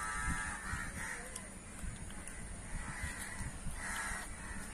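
A crow cawing: several harsh, nasal caws at uneven intervals, the first and longest at the very start.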